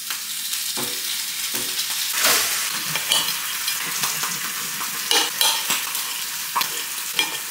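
Bacon sizzling in a hot frying pan, starting suddenly as the rashers go into the oil and frying steadily, with a few light clicks of utensils.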